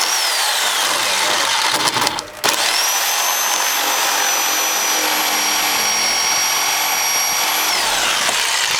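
Ryobi reciprocating saw cutting through a rotted 2x10 wooden floor joist: the motor whine falls at first and briefly drops out about two seconds in. It then spins back up to a steady high whine over the rasp of the blade in the wood, and winds down near the end.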